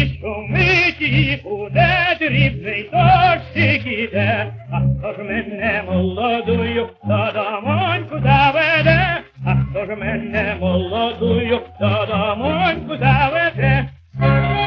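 A male tenor singing a Ukrainian song with a strong vibrato over an orchestral accompaniment, played from a 1928 Columbia 78 rpm record. The sound is narrow and lacks the highest frequencies, as on an early electrical recording.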